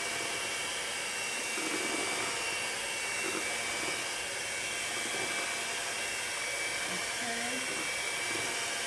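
Electric hand mixer running steadily, its beaters whirring through thick cake batter in a metal bowl.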